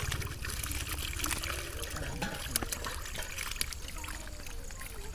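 Shallow water splashing and trickling as live fish flap about in a net and hands reach in among them, with many small sharp splashes.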